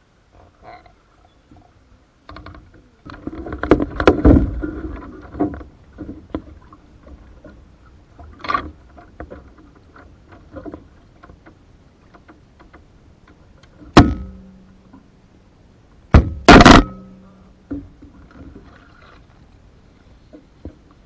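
Canoe being paddled through still water: a stretch of splashing, clattering strokes about three to five seconds in, then three sharp knocks on the hull, which rings briefly after each. Scattered small drips and taps run between them.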